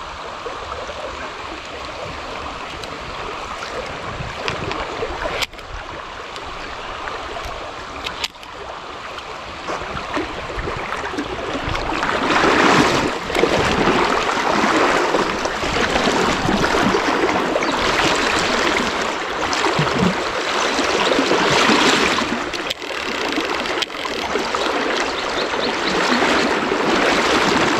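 River water rushing steadily, growing clearly louder about twelve seconds in, with two sharp clicks in the first half.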